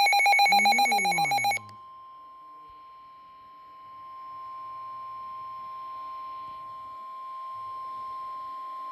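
A loud, rapidly pulsing electronic buzz for about a second and a half, then the steady single-pitch 1050 Hz NOAA Weather Radio warning alarm tone, which signals that a warning broadcast is about to follow.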